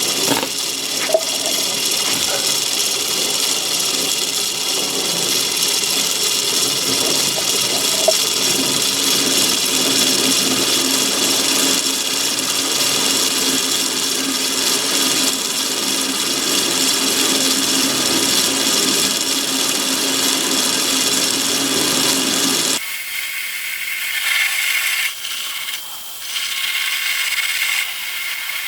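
Myford ML7 lathe running while a rear-mounted parting tool cuts into a piece of cold-rolled steel: a steady mechanical run with several held tones. About 23 seconds in, the lower, fuller part of the sound stops suddenly and a fainter, higher sound carries on.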